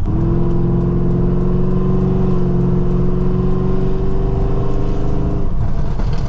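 Chevrolet Camaro SS's 6.2-litre V8 with long-tube headers accelerating at part throttle, a steady drone that rises slowly in pitch. The drone breaks off about five and a half seconds in.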